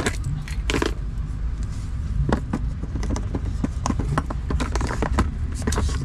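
Low steady rumble inside a car, with many short light clicks and taps from iPhone boxes and phones being handled.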